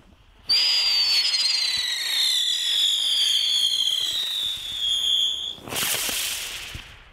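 Funke Tornado-Wirbel ground spinner fireworks whistling loudly as they spin up. The whistle starts suddenly about half a second in and falls slowly in pitch for about five seconds. It then gives way to a loud hiss of about a second as the spinner lifts off.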